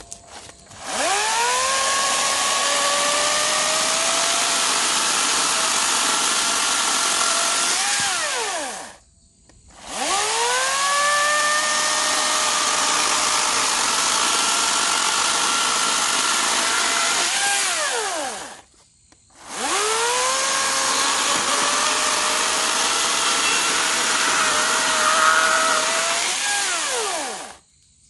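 EGO 56-volt 16-inch brushless battery chainsaw cutting through a cherry log, three times. Each time the motor whines up to speed, runs steadily through the wood for about seven to eight seconds, then winds down, with a brief pause before the next cut.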